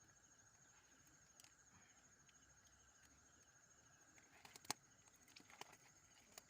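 Faint night insects chirping steadily in a high, evenly pulsing tone, with a few soft clicks and rustles in the second half and one sharper click about three-quarters through.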